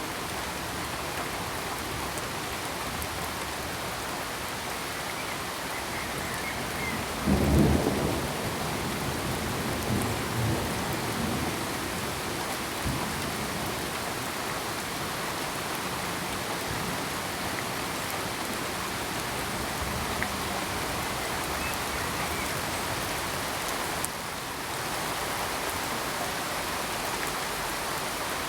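Steady heavy rain falling. About seven seconds in, a loud low clap of thunder breaks in and rumbles on more faintly for a few seconds.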